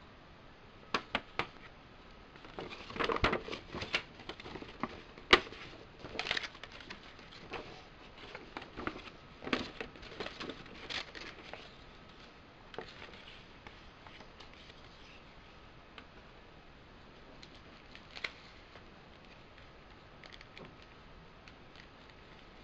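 CD packaging handled by hand on a wooden table: glossy paper inserts and card sleeves rustling, with light taps and clicks as pieces are picked up and set down. The handling is busiest in the first half and turns sparse later, with one last tap toward the end.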